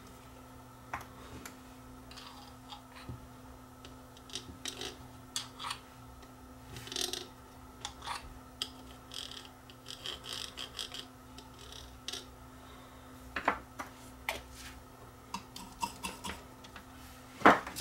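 Scattered small clicks, taps and rubbing from handling a bottle of liquid soldering flux and its brush applicator on a circuit board, with a sharper knock near the end. A faint steady hum lies underneath.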